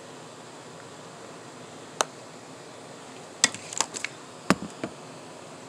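Faint steady hiss of room tone with a few sharp clicks and taps: one about two seconds in and a quick cluster of five or six between three and a half and five seconds.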